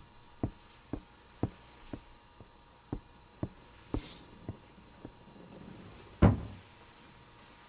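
Steady ticking, about two ticks a second, growing fainter and stopping about five seconds in, then a single heavy thud about six seconds in.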